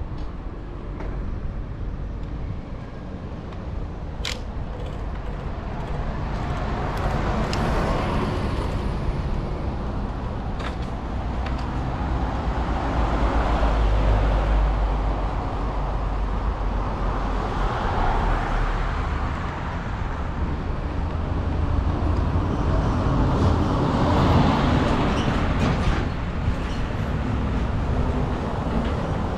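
Road traffic passing a bicycle, cars going by one after another and each swelling and fading, over a steady low rumble. There is a single sharp click about four seconds in.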